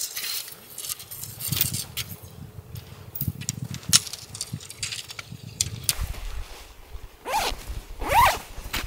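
Tent poles and nylon tent fabric being handled during pitching: scattered clicks and scrapes of the pole sections, then a few quick zip-like swishes near the end.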